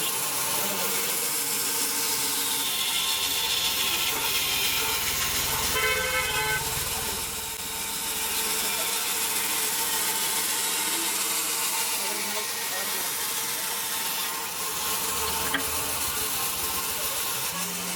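Industrial band sawmill machinery running, a steady hum under a dense hiss of sawing. About six seconds in a short pitched toot sounds.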